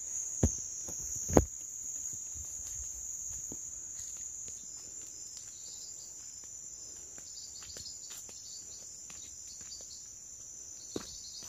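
Crickets singing: a steady high-pitched chirring. Faint footsteps on a dirt path, with two sharp knocks near the start, the louder about a second and a half in.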